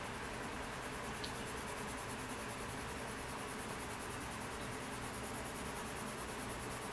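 Sky-blue colored pencil shading on sketchbook paper: a steady, soft scratching of repeated strokes over a background hiss.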